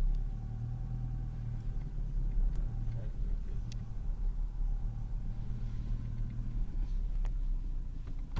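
Car running on the road, heard from inside the cabin: a steady low engine and road rumble with a few light clicks and knocks. Right at the end a sudden loud rush of noise starts.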